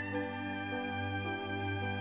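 Background music: a slow instrumental with held notes over a steady low bass.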